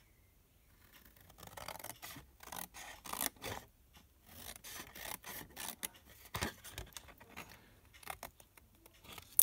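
Cardstock and paper rubbing and sliding against each other and the table as they are handled, in irregular scraping strokes starting about a second in.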